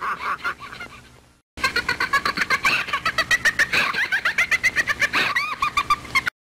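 High-pitched, rapidly pulsing cartoon chatter, about six quick pulses a second. It starts after a brief break about a second and a half in and cuts off abruptly near the end.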